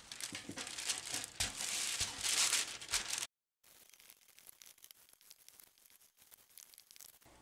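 Wax paper crinkling and rustling as pie dough is rolled out between two sheets with a marble rolling pin. About three seconds in the sound cuts off abruptly to near silence.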